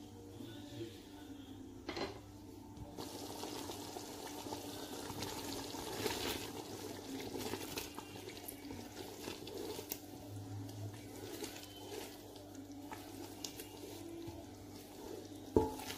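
Thick tomato-and-pepper sauce with fish, cooked in red palm oil, bubbling in a pot as it is stirred with a wooden spatula, with a few sharp knocks of the spatula against the pot.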